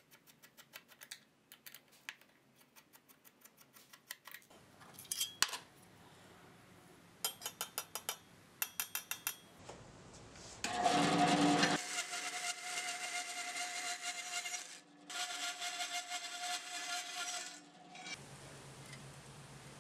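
Small metal clicks and ticks as screws are backed out of a USB hub's sheet-metal bracket with a hand screwdriver. About ten seconds in, a Wen bandsaw cuts metal, a loud steady noise with a ringing tone, in two passes with a short break between them.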